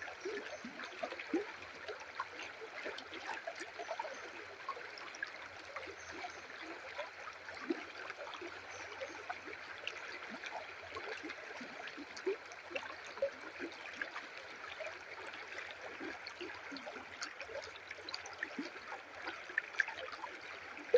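River water flowing over rocks: a steady rushing with many small gurgles and splashes.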